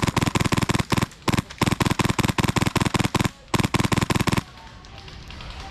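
Airsoft gun firing on full auto in rapid bursts of sharp cracks, with short pauses about a second in and again past three seconds, before it stops.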